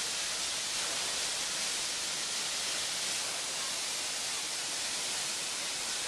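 Powerscourt Waterfall pouring down a steep rock face: a steady, unbroken rush of falling water, more hiss than low roar.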